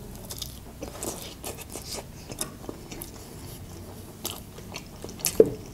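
Close-miked chewing and biting of a lavash pie: soft crunches and wet mouth sounds, with a louder mouth sound near the end.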